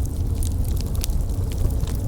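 Wood fire burning with a steady low rumble of flames and frequent sharp pops and crackles.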